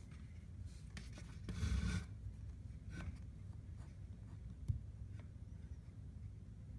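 Fingers rubbing and smoothing a fresh bead of caulk into a baseboard corner seam: a short rub about a second and a half in, and a few faint clicks.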